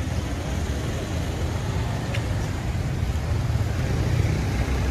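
Street traffic: the engines of a slow line of cars give a steady low rumble over an even wash of noise from the wet street. There is one brief click about two seconds in.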